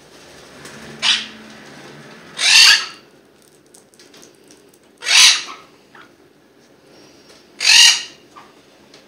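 Young parrot giving four harsh, loud screeches spaced about two and a half seconds apart, the first one short.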